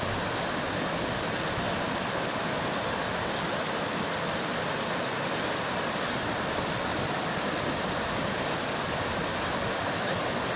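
Small river cascade of white water pouring over rock ledges: a steady, unbroken rush of water.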